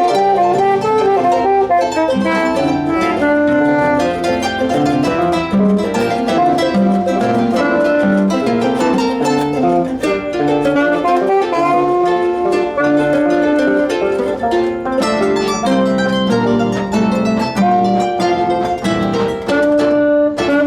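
Music played on plucked string instruments: a quick melody of many short plucked notes over a moving bass line.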